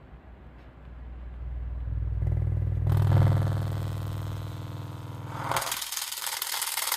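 5 Core 8-inch subwoofer driven with deep bass that swells up over a couple of seconds and distorts heavily. About five and a half seconds in the bass gives way to a loud harsh crackling hiss as the overdriven driver fails.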